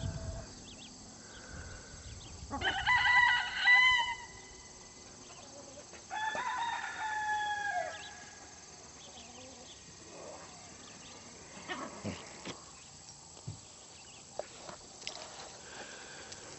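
A rooster crowing twice, each crow about a second and a half long, the second ending on a falling note.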